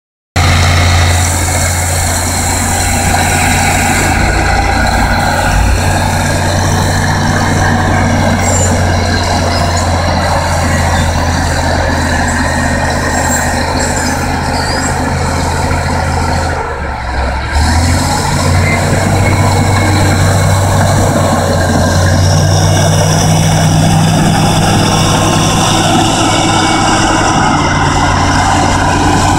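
Caterpillar D6H crawler bulldozer's diesel engine running steadily under load as the machine pushes dirt with its blade, a loud, constant drone with a brief dip about 17 seconds in.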